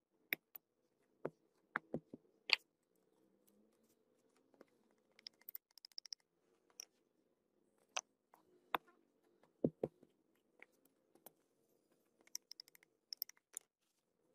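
A sand casting mold being broken apart and the freshly cast metal piece handled with steel tongs: scattered sharp clicks, knocks and scrapes, with a deeper knock a little before ten seconds in and short runs of fast crackling ticks around five seconds in and again near the end.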